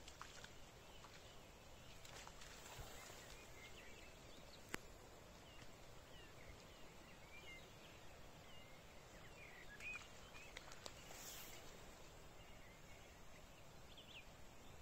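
Faint marshland ambience with scattered small bird chirps and twitters, and one sharp click a little under five seconds in.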